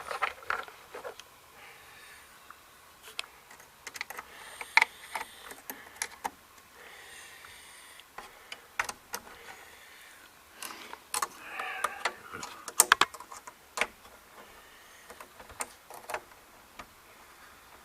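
Scattered small clicks and rustling as meter probes and test leads are handled and pressed onto a breaker panel's bus bar, with irregular taps and a few short scraping noises.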